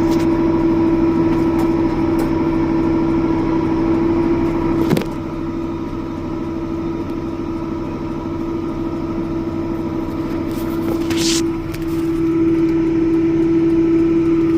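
Farm vehicle's engine running steadily, heard from inside the cab, with a strong steady hum. A single knock comes about five seconds in, after which it sounds a little quieter, and a short hiss comes about two-thirds of the way through.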